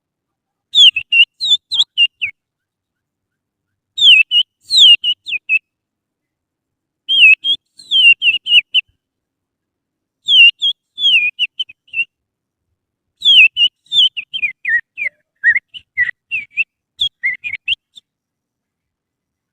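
A person whistling through the little finger, imitating an oriental magpie-robin's (kacer) song. There are five bursts of quick, twisting chirped notes with short silent pauses between them, and the last burst is the longest.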